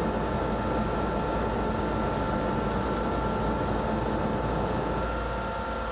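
Fire engine's motor and centrifugal fire pump running steadily at raised throttle, with a steady whine over the engine noise, while drafting water from a portable tank and filling the truck's tank.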